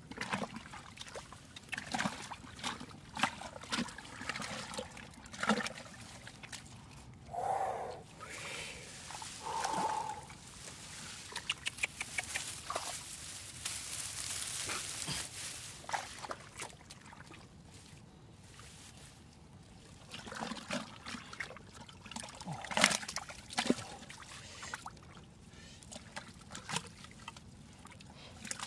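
Hands digging and groping in wet mud and muddy water: repeated squelches, slaps and sloshing, with fish flapping in the shallow mud. About twelve to sixteen seconds in there is a stretch of steadier trickling, pouring water.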